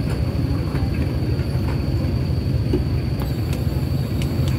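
Steady low rumble of motorcycle engines idling, with a few faint clicks.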